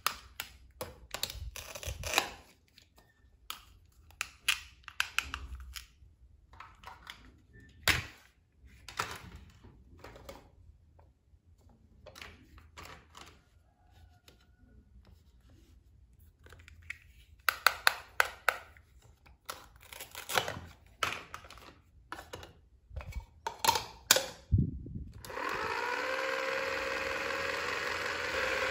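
Plastic toy-food cutting: sharp clicks, taps and knocks as a plastic toy knife cuts through a segmented toy carrot and the pieces are handled and dropped. About 25 seconds in, a battery-powered toy blender switches on and runs with a steady whir whose pitch rises briefly as it starts, then holds.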